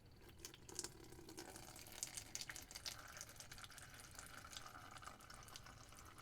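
Faint dripping and trickling of coolant draining out of a PC water cooler's cut hose, in small irregular drips.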